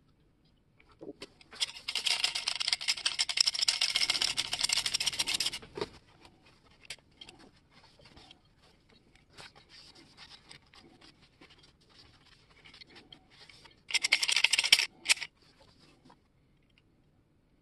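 Scratchy rubbing and scraping as a paper towel wipes oil over the blades and housing of a vintage three-blade grass shear: a dense spell of about four seconds, then faint scattered scratches, then a shorter burst of rubbing near the end.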